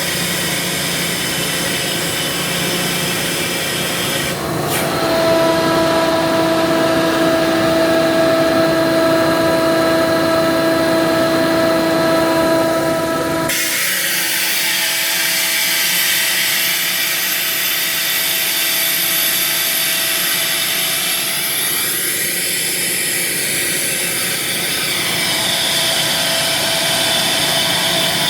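Ingersoll Rand SSR-EP60 60 hp rotary screw air compressor running, with a steady whine coming in about four seconds in and the sound changing abruptly about halfway through.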